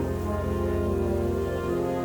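Orchestral background music with slow, held string chords.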